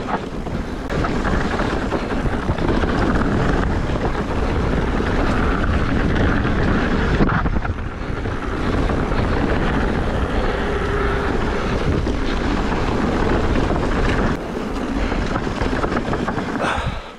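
Wind buffeting the microphone and tyres rumbling over a dirt trail while riding a 2020 Specialized Turbo Levo electric mountain bike at speed. The rush eases briefly about seven seconds in.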